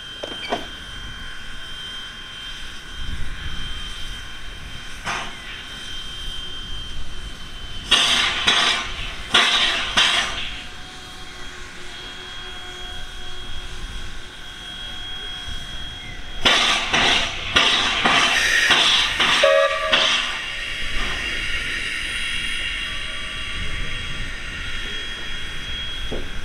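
Steam locomotive W934 working slowly with a steady hiss of steam. Two spells of loud, separate exhaust beats come about a third of the way in and again past the middle.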